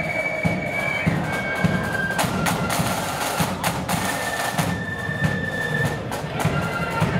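Marching flute band playing: a flute melody of held high notes over side drums and a repeating bass drum beat.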